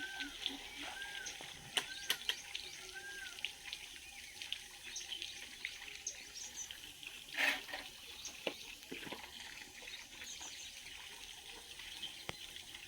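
Birds calling outdoors over a steady hiss: many small high chirps throughout, four short arched whistled notes in the first few seconds, and a single louder, noisier call about seven and a half seconds in.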